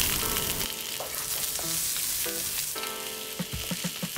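Chopped garlic and diced onion sizzling steadily in hot oil in a wok.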